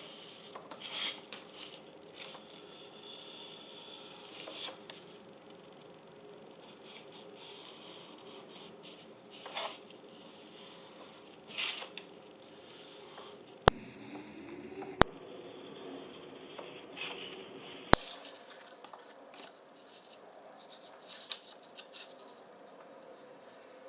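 Faint crafting sounds of working with foam plates: occasional brief rustles and scratches, with three sharp clicks in the middle stretch.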